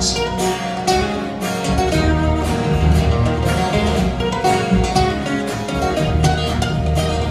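Live instrumental guitar passage with no singing: an acoustic guitar and a second guitar playing fast plucked and strummed notes together at a steady, even level.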